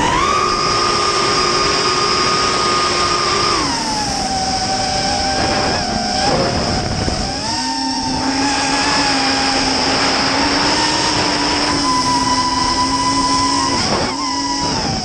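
Multirotor drone's motors and propellers whining steadily, the pitch stepping up and down several times as the throttle changes.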